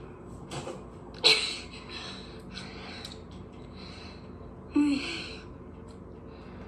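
Two short, sudden breathy bursts from a person, about a second in and again near five seconds in, the second with a brief voiced note that drops in pitch.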